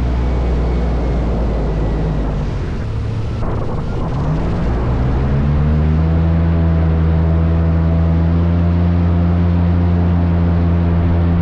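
Airboat engine and its big air propeller running. The engine eases off briefly about three seconds in, then revs up and holds a steady, higher speed.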